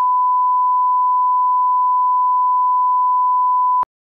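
1 kHz line-up reference tone of a bars-and-tone test signal: one steady, loud pure tone that cuts off suddenly with a faint click near the end, leaving silence.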